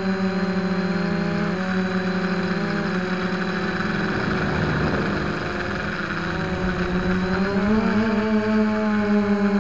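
Four electric motors and carbon-fibre propellers of a Hoverthings Flip Sport quadcopter, heard from its own onboard camera: a steady multi-tone hum with beating between the motors, its pitch wavering as the throttle changes. The hum turns rougher about four seconds in and steadies, a little higher, near eight seconds.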